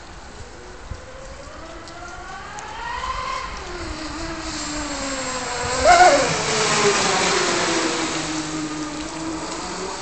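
Brushless-motor RC racing catamaran (TP 4060 1800kv motor on 6S, Octura 5414/2 propeller) whining at full speed as it closes in, loudest and dropping sharply in pitch as it passes close about six seconds in, with a hiss of spray. Afterwards the whine holds steadier and lower as it runs away.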